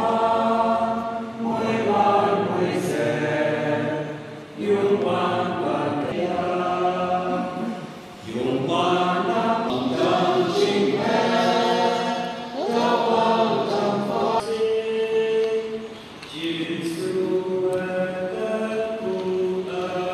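Church congregation singing a hymn together, many voices on long held notes, line by line with short breaks between phrases.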